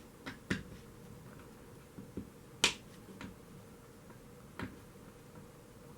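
A few light, sharp clicks and taps from small solder pieces and a soldering iron being handled on a work surface, the sharpest about two and a half seconds in.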